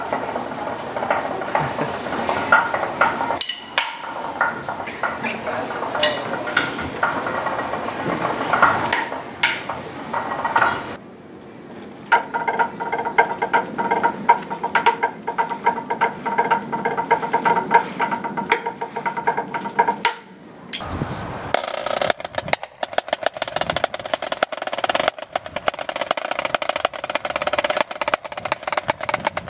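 Drumsticks playing fast rolls and strokes on a small snare-type drum, in several short takes that cut abruptly into one another.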